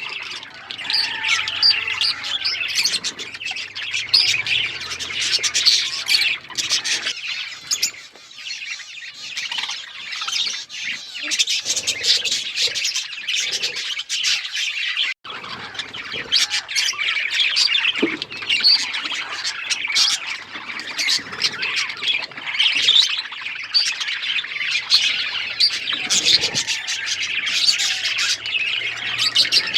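A flock of budgerigars chirping and chattering continuously, with many overlapping calls and occasional squawks. The calls thin out briefly about a third of the way in.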